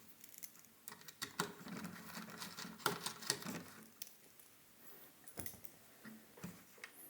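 Irregular small clicks, taps and scrapes of hands and a screwdriver working on the plastic body of an Akai EWI 4000s during disassembly. The clicks come thick through the first few seconds and then thin out to a few isolated ticks.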